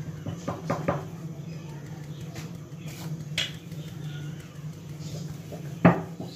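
Light taps of a hand on a steel mesh sieve sifting flour into a glass dish: several quick taps in the first second, a few fainter ones after, and one sharper knock near the end.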